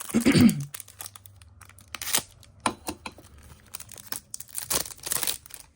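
Foil trading-card pack being torn open and crinkled, in irregular rips and crackles, the loudest about two seconds in and again near the end. A short voice sound right at the start.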